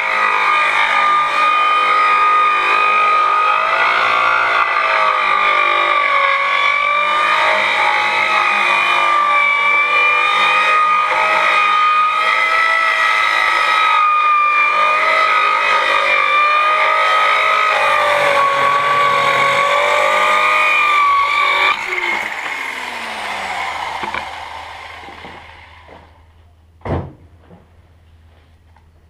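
Hand-held electric circular saw ripping a board lengthwise: a loud, steady high whine that wavers slightly under load. About 22 seconds in it is switched off and winds down with a falling pitch. A single sharp knock follows near the end.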